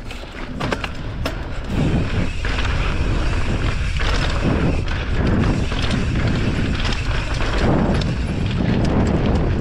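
Wind rushing over the microphone, with tyre rumble on a dirt trail, while riding a mountain bike. It builds over the first two seconds as the bike picks up speed, then holds steady.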